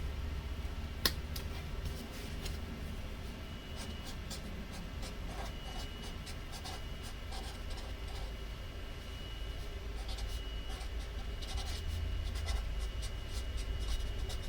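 Handwriting on paper: faint scratchy pen strokes in short runs, busier in the last few seconds, with one sharp click about a second in, over a steady low room hum.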